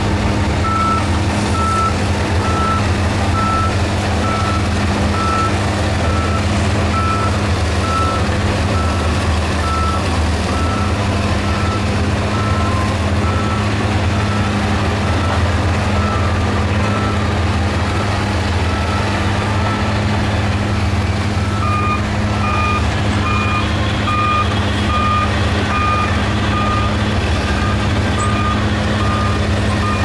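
Heavy diesel earthmoving machinery running steadily with a low engine drone, over a reversing alarm beeping about one and a half times a second. About two-thirds of the way in the first alarm fades out and a second, slightly lower-pitched reversing alarm starts beeping.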